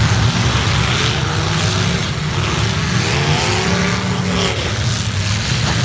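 Engines of several demolition derby cars running and revving together, a loud, steady mix with pitch rising and falling in the middle.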